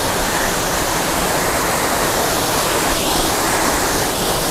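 Small waterfall and its cascades splashing steadily over boulders into a rocky stream pool.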